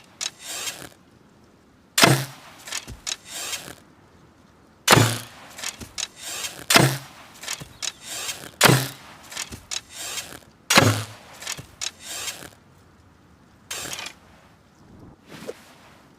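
Hunting bow being shot again and again: five sharp releases, each a hard low thump followed by about a second of rattling, spaced roughly two seconds apart, with fainter similar sounds at the start and near the end.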